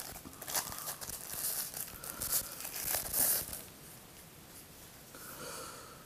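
Thin plastic bag crinkling and tearing as it is pulled open and a screwdriver slid out of it, for about three and a half seconds, then only faint handling.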